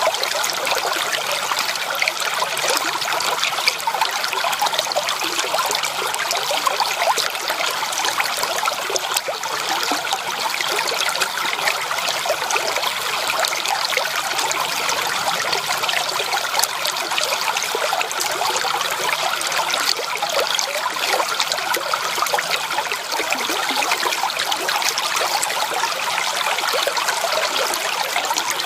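Creek water trickling and babbling over stones in a steady, unbroken flow.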